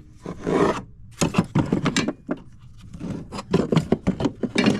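Hand tools handled in a wooden toolbox: a run of short scrapes, knocks and metal clinks, busiest near the end.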